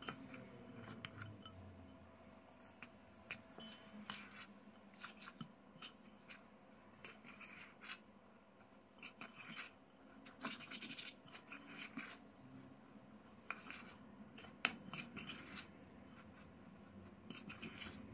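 Faint, irregular scraping and rubbing as flour and water are mixed into a shaggy dough in a glass bowl, with a spoon and then by hand, with a spoon scraping against the glass.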